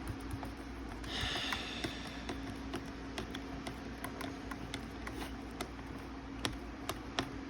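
Small scattered clicks and taps from a plastic animated Santa toy being handled and worked on, with a brief scraping rustle about a second in, over a steady low hum.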